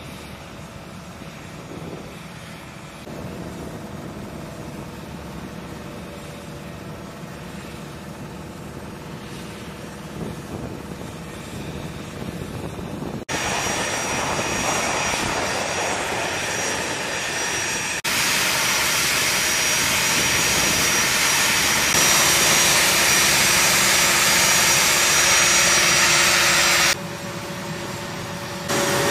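Airfield ramp noise: a munitions lift truck's engine running steadily, then much louder steady jet-engine noise with a high whine. The noise jumps louder in steps about 13 and 18 seconds in and drops near the end.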